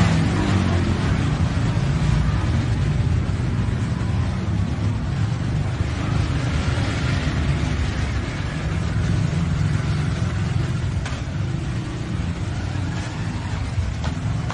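Street traffic: car and motorbike engines running, with a vehicle passing by midway as a swell of engine and tyre noise.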